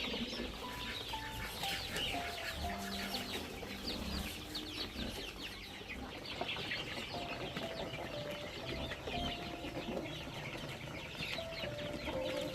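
Chickens clucking and peeping as they feed.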